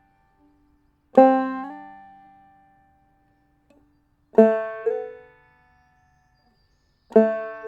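Open-back banjo played clawhammer style: three single notes struck a few seconds apart, each slid up to a higher fret while still ringing, so the pitch rises about half a second after each pluck before the note dies away.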